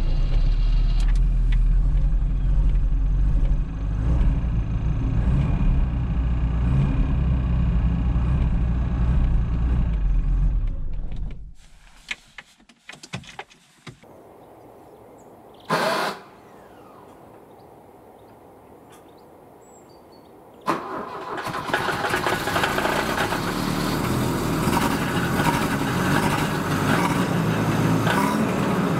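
Volvo 245's carbureted B23A 2.3-litre four-cylinder engine running steadily with a strong low hum. About eleven seconds in it stops, followed by a few clicks, a quiet stretch and one short loud sound; about twenty seconds in a noisier, brighter engine sound starts abruptly and keeps going.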